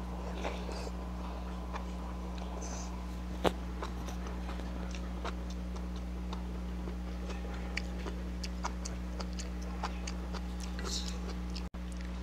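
A person eating spicy noodles up close: soft chewing and mouth clicks, with one sharper click about three and a half seconds in. A steady low electrical hum runs underneath.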